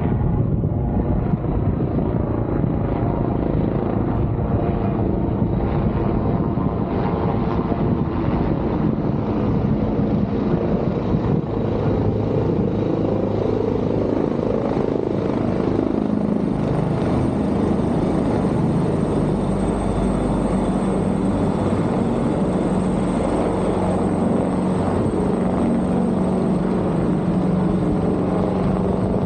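Fire department helicopter flying past, a steady rotor and engine drone with a low hum that grows clearer in the second half.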